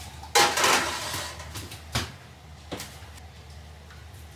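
Kitchen pot and dishware being handled at the stove and sink: a sudden clattering rush of noise about half a second in that fades over a second, then two short sharp knocks.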